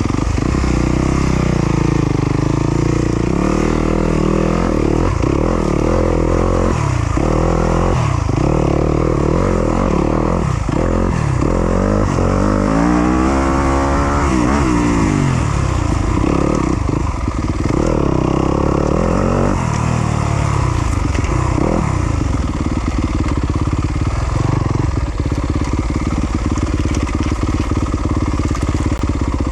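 2020 Yamaha YZ250FX's 250cc four-stroke single-cylinder engine being ridden hard, revs rising and falling repeatedly as the throttle is worked, with a longer climb and drop in pitch about halfway through.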